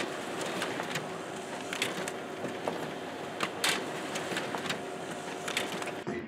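Printer running as it prints and feeds sheets into its output tray: a steady mechanical whir with a low hum and scattered sharp clicks, stopping abruptly near the end.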